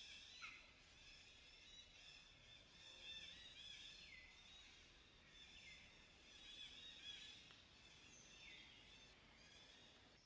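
Faint forest ambience: a dense chorus of high-pitched chirping calls from wild birds or insects. Several short falling calls stand out every second or two.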